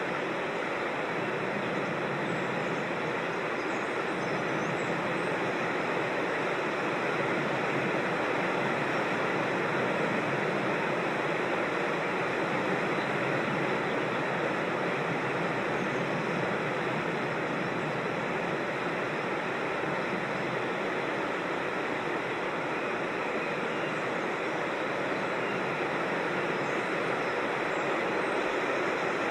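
Creek water rushing, a steady, even noise with no breaks.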